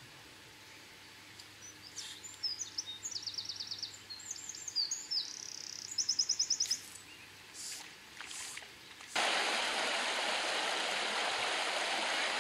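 A songbird singing a varied song of high chirps and quick trills. About nine seconds in, this gives way suddenly to the steady rush of a shallow, rippling stream.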